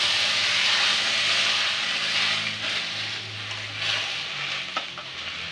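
Water hitting daliya (broken wheat) roasted in hot ghee in a kadhai, sizzling loudly and slowly dying down as the pan cools, while the mixture is stirred with a steel spatula. There are a couple of faint clicks near the end.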